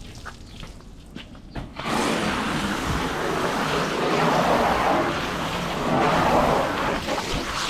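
Water spraying hard onto a welding rig truck during a wash. The spray starts about two seconds in after a quieter stretch with a few clicks, and runs as a loud, steady hiss.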